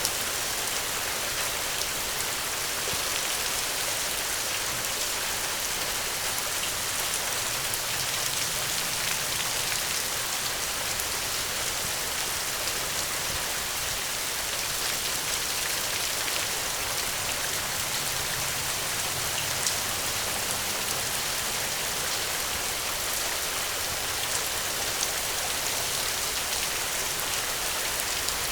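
Steady rain falling on a surface, an even hiss scattered with many small drop ticks.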